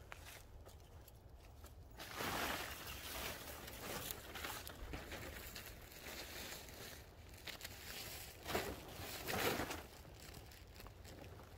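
Plastic tarp crinkling and rustling in uneven bursts as it is handled and pulled into place, loudest about two seconds in and again about nine seconds in.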